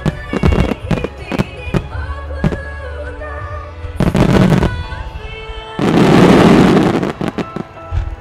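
Starmine fireworks display: a quick run of shell bursts through the first three seconds, then two dense noisy rushes, the longer one about six seconds in. Music plays along underneath.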